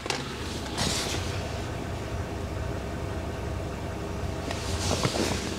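BMW N52 3.0-litre straight-six idling, heard from inside the cabin of a manual-gearbox 130i. A rattle comes from the back of the engine, where it meets the transmission, and stops when the clutch pedal is pressed; the owner is 90% sure it is a failing dual mass flywheel.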